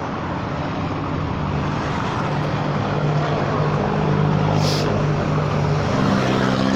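Honda Forza 300 scooter's single-cylinder engine running at low speed in slow traffic: a steady engine hum over road noise. A brief hiss sounds about two-thirds of the way through.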